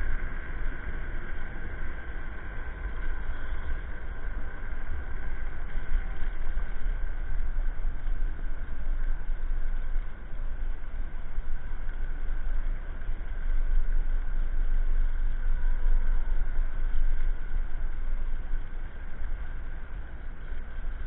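An electric scooter riding over pavement: a steady high-pitched motor whine over wind buffeting the microphone and tyre rumble, surging unevenly in loudness.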